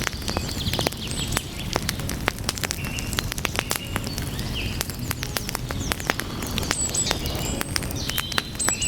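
Wood fire crackling: dense pops and snaps, many a second, over a low steady rumble of the flames. Short high chirps of small birds sound over it throughout.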